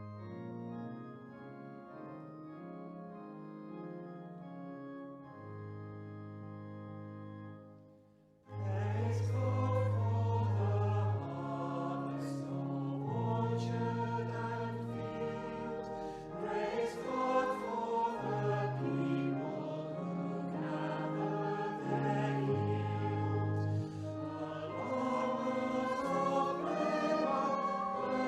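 Church organ playing the introduction of a hymn with sustained notes, then, after a brief pause about eight seconds in, a congregation singing the hymn with the organ accompanying.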